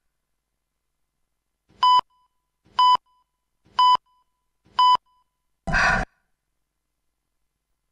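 Countdown beeps: four short, identical electronic beeps, one a second, ticking off a film-leader countdown. About a second after the last beep comes a brief burst of film soundtrack, under half a second long, too short to make out.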